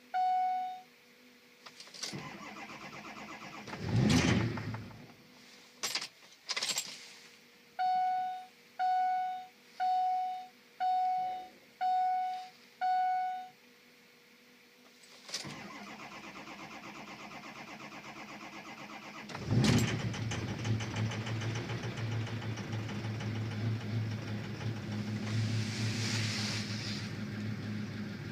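Ford 6.0 Power Stroke diesel pickup being started after sitting: dash warning chimes sound about once a second, then the starter cranks for about four seconds before the engine catches and runs on. This is the hard start the owner is chasing.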